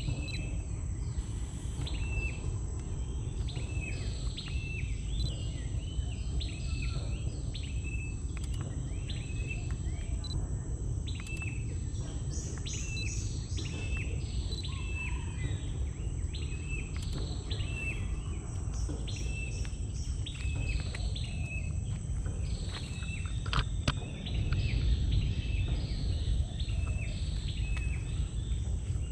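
Birds calling repeatedly in a mangrove wetland: short chirping calls about once a second, with a few higher notes from another bird now and then. Underneath are a steady high-pitched insect tone and a low rumble, and a sharp click comes near the end.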